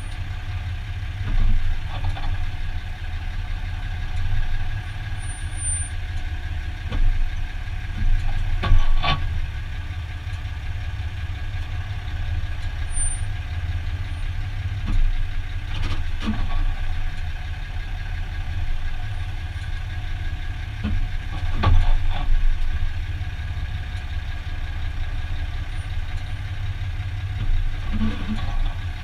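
2015 Dodge Ram 2500 pickup moving at parking-lot speed, its engine running low and steady, with a short clunk from the drivetrain every few seconds, several of them close together around the middle.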